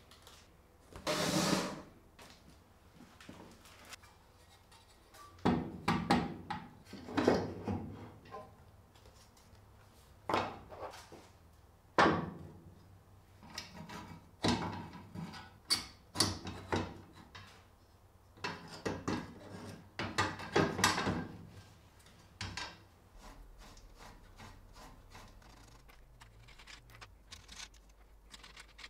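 Irregular handling sounds of laser-engraver frame parts being lifted out of foam packing and set down and fitted together on a wooden workbench: knocks, clunks and short scraping rubs.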